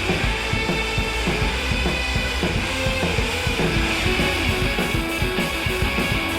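Background music: a rock track with guitar and drum kit at a steady beat.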